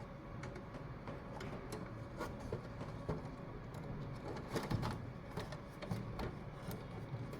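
Irregular light clicks and taps of computer parts and cable connectors being handled and fitted, over a steady low hum.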